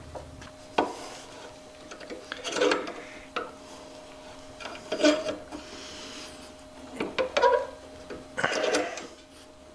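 Hand tube-flaring tool working on the end of a gas line: the yoke's screw is turned in several short bouts, metal rubbing and scraping as the cone spreads the tube end into a flare. A sharp click comes about a second in.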